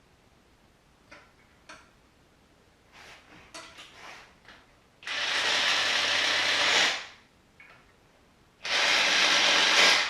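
A few light clicks and knocks of parts and tools being handled, then two loud, steady bursts of noise from a tool at work on an engine. The first lasts about two seconds and the second about a second and a half, each starting and stopping sharply.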